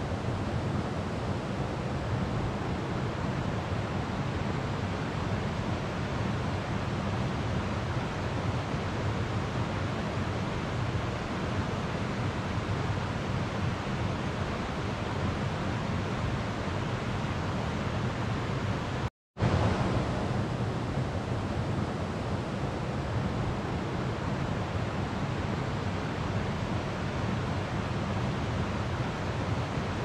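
Slow-flowing river water, a steady even flow with no distinct splashes. The sound cuts out completely for a fraction of a second about nineteen seconds in, then comes straight back.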